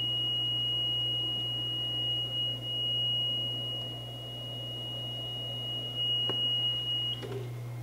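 Continuous high-pitched warning tone from a 1991 Hansvedt DS-2 CNC wire EDM, which cuts off near the end. It sounds because the wire is not in front of the wire detector. A low steady hum runs underneath.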